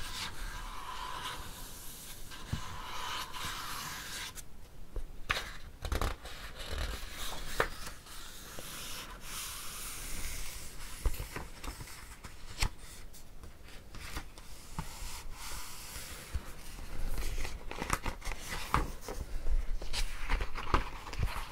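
Close-miked ASMR trigger sounds: steady rustling and scraping dotted with many small clicks and taps, with a short pause about four and a half seconds in.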